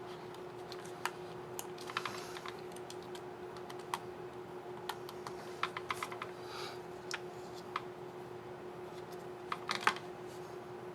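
Dell Precision 5550 laptop keyboard keys clicking: scattered sharp plastic clicks, some single and some in quick runs, with a cluster near the end, as a keycap and its scissor mechanism are worked into place and pressed. A steady faint hum runs underneath.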